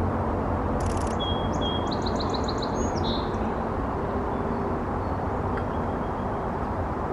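A steady low rumble of distant traffic, with a songbird singing a short phrase a little over a second in: a couple of thin whistles, then a quick run of about six chirps. Just before the song there is a brief burst of rapid clicking.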